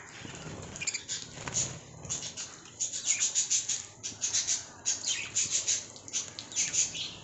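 Lovebirds chirping in shrill, rapid bouts, several times over.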